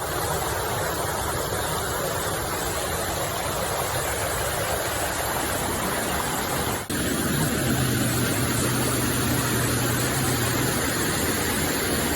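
Waterfall rushing: a steady roar of falling water. About seven seconds in the sound cuts to a slightly louder stretch, and a steady low hum joins it for about three seconds.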